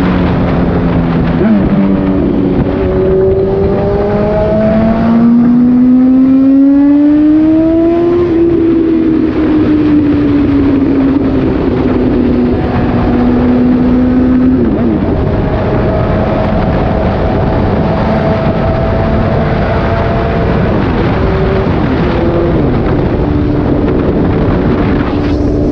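Suzuki GSX-S750's inline-four running loud through an SC-Project exhaust with the dB killer removed, on the move. The pitch climbs under acceleration for several seconds, then eases off, drops about two-thirds of the way through and holds steady.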